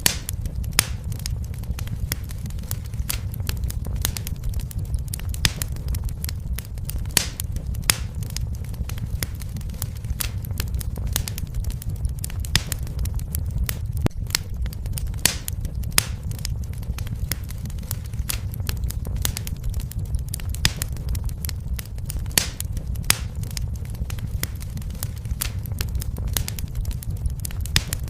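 Fire crackling in a fireplace: frequent irregular sharp pops and snaps over a steady low rumble.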